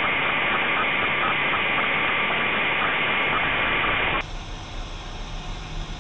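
Loud static hiss, like a detuned TV or radio. About four seconds in it drops suddenly to a quieter hiss with a low hum under it.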